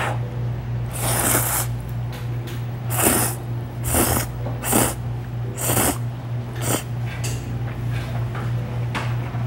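Ramen noodles slurped in a run of short slurps, about six, over a steady low hum.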